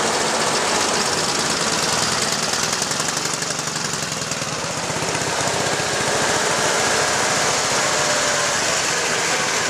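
Engines of old Eastern-bloc military vehicles passing at low speed: a sidecar motorcycle and a UAZ jeep, with a rapid, even engine beat in the first half, then a Robur truck's engine as it follows.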